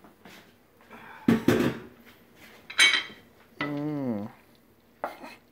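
Cookware clattering as a wooden spoon works macaroni in an enamelled pan on a gas stove: two sharp knocks about a second in, a ringing clank near the middle, and a smaller knock near the end. A brief wordless voice sounds in between.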